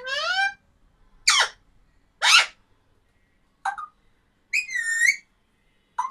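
A parrot whistling a string of short calls, about six, some sliding up in pitch and some sliding down, with a warbling call a little before the end.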